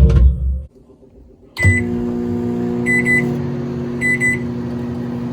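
A brief loud clatter, then after a short pause a microwave oven clicks on and runs with a steady hum. Two short double beeps sound about three and four seconds in.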